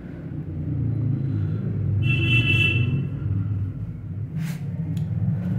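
LG 8 kg fully automatic top-load washing machine running with a low steady rumble. About two seconds in, its control panel gives a high electronic beep lasting about a second, and two short clicks follow near the end.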